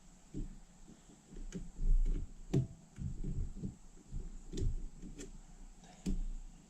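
Irregular clunks and knocks of metal starter parts being handled and fitted on a bench during reassembly, with a few sharp clicks. The loudest comes about two and a half seconds in.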